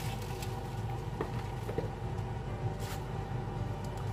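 Vegetables going into a pot of boiling chicken curry: a few brief rustles and knocks over a steady low hum with several faint tones.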